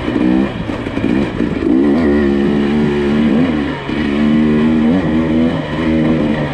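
SUV engine, a Nissan Pathfinder's, revving up and down repeatedly as it works over rough off-road trail, the pitch rising and falling every second or two.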